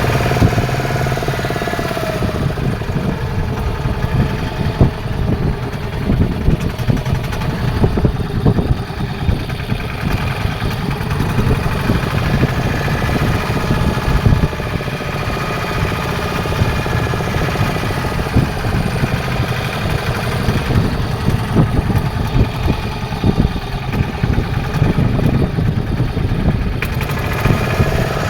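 Fishing boat's engine running steadily, a loud, continuous low rumble.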